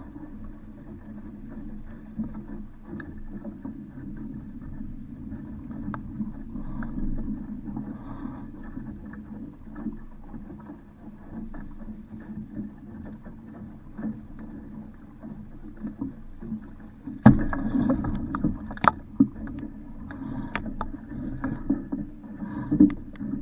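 Small sailboat on the water: a steady low rush of water and wind around the hull. A run of sharp knocks from the boat starts about 17 seconds in, with more near the end.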